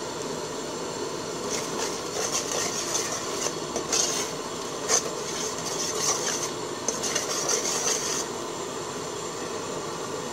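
A ladle stirs and scrapes inside an aluminium pot of bubbling curry, rasping for several seconds with two sharp knocks against the pot midway, over a steady hiss.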